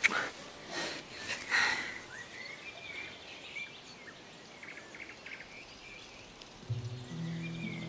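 Small birds chirping and twittering in an outdoor summer ambience, after a few short airy sounds in the first two seconds. Near the end, low sustained notes of film score music come in.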